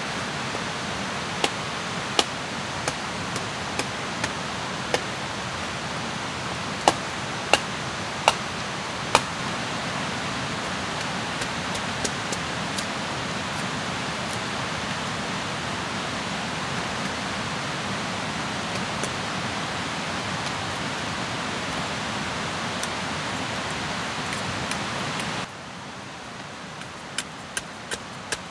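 Steady rushing noise of tropical forest ambience, with scattered sharp knocks in the first ten seconds. About three seconds before the end the rushing stops abruptly, leaving quieter ambience, and a machete strikes wood about twice a second as it shaves a stick.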